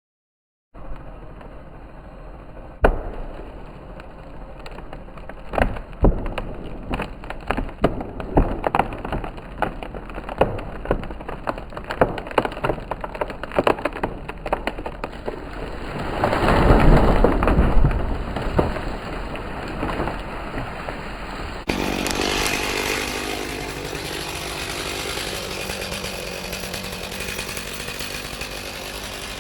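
Wood cracking and snapping, many sharp cracks in irregular succession as a white pine's fibres give way, building to a loud rushing crash about sixteen seconds in as the tree comes down. The sound then changes abruptly to a small engine running steadily.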